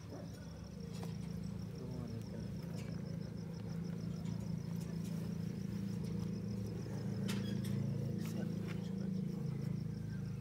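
A steady low hum, like an engine running, with an insect trilling in fast even pulses over it and a few faint clicks.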